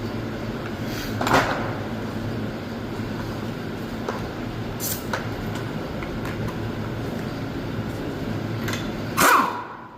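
A steady mechanical hum, with a few sharp metallic knocks, the loudest near the end, just before the hum cuts off.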